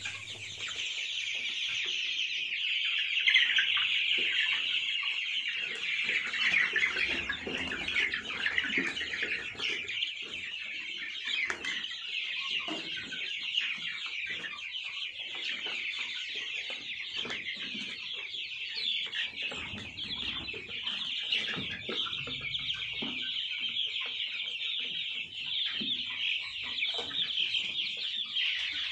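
A large flock of 27-day-old Sonali chicks peeping and cheeping without a break, many high calls overlapping into one dense chorus.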